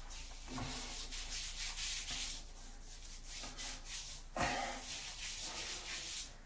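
Hands rubbing skin cream into bare arms and shoulders in repeated rubbing strokes, with one knock about four and a half seconds in.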